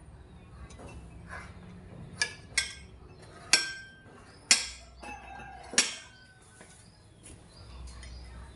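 A metal spoon clinking against ceramic bowls and metal dishes, about five sharp clinks spread over a few seconds, two of them leaving a short ring.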